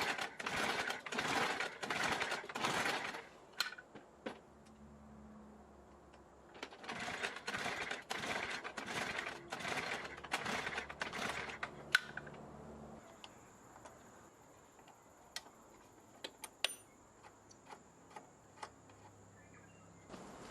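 Lawnmower recoil starter cord pulled over and over in quick rasping strokes, two runs of them, without the engine catching: the mower won't start. Scattered sharp clicks follow.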